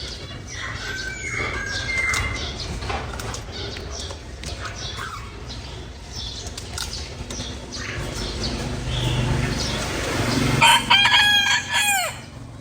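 Bird wings flapping and scuffling with scattered light taps. Near the end comes a loud bird call in a quick run of pitched notes, dropping in pitch at its close.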